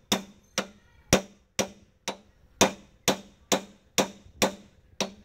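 Hammer tapping a steel bearing race in a tractor's axle bearing housing, metal on metal, about two blows a second, each with a short ring. This is the bearing being worked in its housing during an axle bearing replacement on a Sonalika DI-50 RX.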